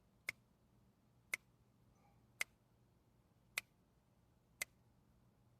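Faint, sharp ticks about once a second, five in a row, over a low steady hum.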